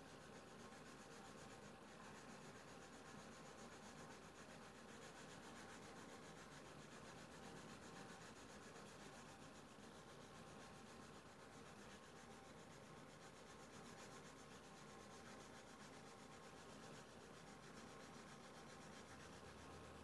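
Near silence: faint rubbing of a drawing stick on paper over steady room tone.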